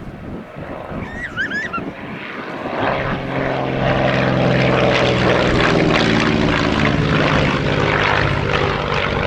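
North American Navion's Lycoming O-435 flat-six engine and propeller droning on a display pass, swelling louder about three seconds in and then holding, its pitch falling slightly as it goes by.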